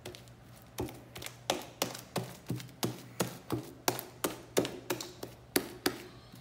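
Wet, sticky slaps of a hand patting and pressing shaving-foam slime against a glass tabletop, about three a second, starting about a second in. The slime is being kneaded by hand to work in the activator while it is still setting.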